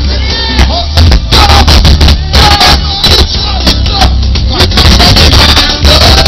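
Live soca music played very loud over a concert sound system, with heavy bass and a male singer on the microphone.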